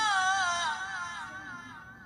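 A male Qur'an reciter's high voice holding one long melismatic note in tilawah style, the pitch wavering up and down as it is sustained, then trailing off to almost nothing near the end as the breath runs out.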